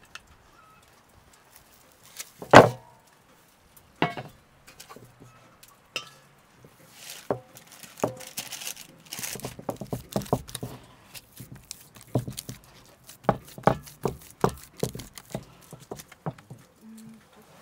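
Handling noises of hand-forming a giant patty of ground meat: a sharp knock about two and a half seconds in, then scattered soft knocks and slaps with parchment paper crinkling as the meat is pressed by hand into a paper-lined pan.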